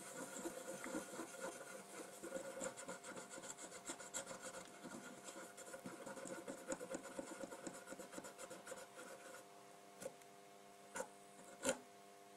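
Acetone-soaked cotton swab scrubbing back and forth over a bare solder pad on a circuit board, cleaning it: a fast, soft scratchy rubbing that stops about nine seconds in. A few light ticks follow, over a faint steady hum.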